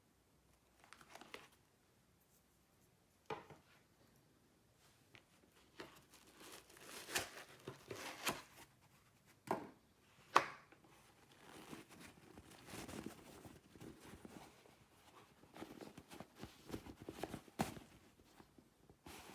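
Hands handling packaging and parts: plastic crinkling and tearing, with scattered sharp clicks and taps, the sharpest about ten seconds in.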